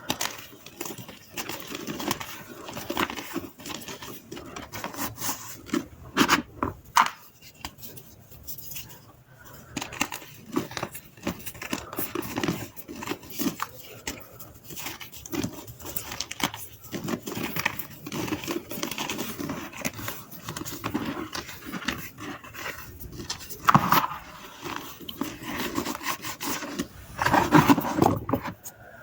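Dry gym chalk being crumbled and crushed: a steady run of dry crunching, crackling and scraping, with a few louder crunches.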